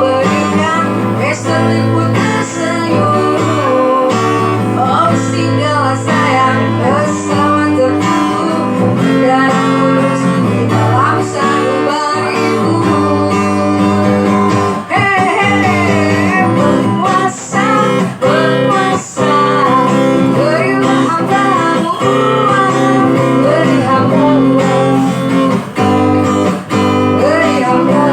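Music led by guitar, with plucked and strummed strings over steady held notes and a melody line that bends in pitch.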